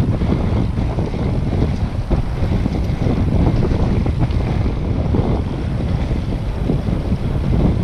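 Wind buffeting the microphone of a camera on a moving bicycle: a loud, steady low rumble with irregular gusty pops.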